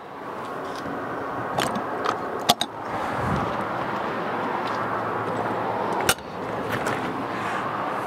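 Sharp clicks and knocks of a camper's front storage box being unlocked, unlatched and its lid lifted: a few clicks around two seconds in and another about six seconds in. Steady outdoor background noise underneath.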